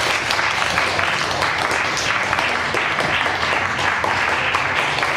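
An audience applauding, with dense, steady clapping.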